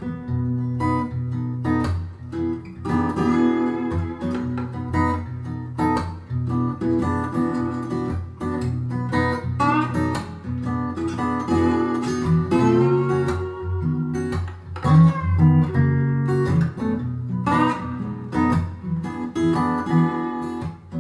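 Acoustic blues guitar music playing through a pair of B&W Vision V201 bookshelf loudspeakers, heard through a microphone in the room: picked guitar notes over a steady bass line.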